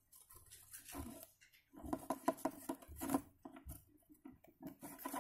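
Dzungarian dwarf hamsters scrabbling and scuffling around a walnut on a plastic cage floor: soft pattering of small claws with quick light clicks and scratches, busiest a couple of seconds in.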